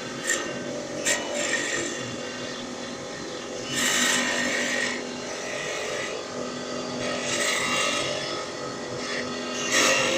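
Mini CNC wood-turning lathe running with a steady motor hum while its cutter bites into the spinning wood in loud hissing bursts: one about four seconds in, another around seven to eight seconds, and a short one near the end. Two sharp clicks come in the first second or so.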